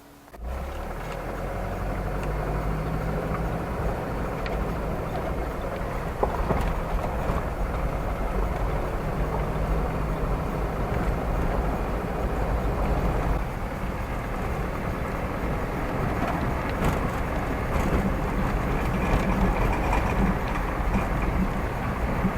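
A vehicle driving, with a steady engine and road rumble that starts abruptly about half a second in, and scattered light knocks and rattles.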